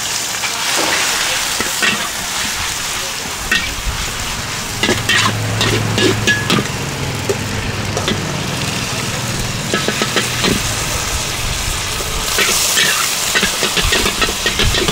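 Food sizzling in a hot steel wok while a metal ladle stirs and scrapes it, with sharp clinks of metal on the wok that come thicker near the end.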